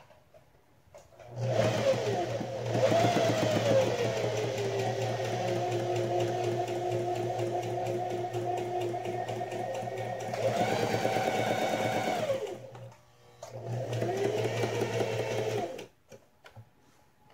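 Singer Heavy Duty 4432 sewing machine stitching a seam, its motor speeding up and slowing as it runs. It starts about a second in, stops for a moment about three-quarters of the way through, runs again for about two seconds, then stops.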